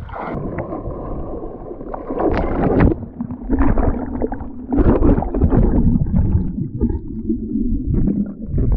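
Muffled gurgling and rumbling of water as a swimmer moves underwater, rising and falling in uneven surges.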